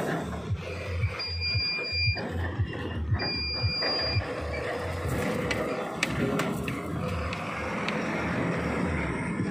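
Heavy truck's engine running, heard from inside the cab with low thumps from the road, and two electronic warning beeps, each about a second long and a second apart, early in the stretch.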